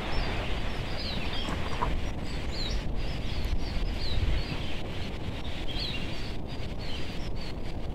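Steady rushing wind noise outdoors, with small birds giving short, high, falling chirps now and then.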